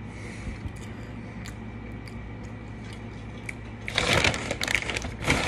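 Faint chewing with a few soft clicks. Then, about four seconds in, a loud spell of paper napkins rustling and crinkling as they are handled.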